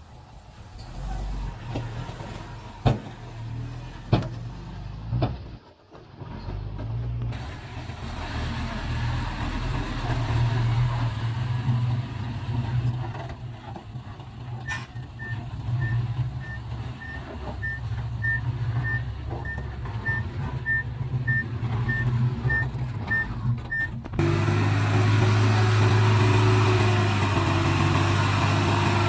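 Diesel engines of heavy earthmoving machinery (dump trucks and a bulldozer) running with a steady low rumble, and a few sharp knocks in the first seconds. Around the middle a reversing alarm sounds a steady series of short beeps, about two a second, for roughly ten seconds.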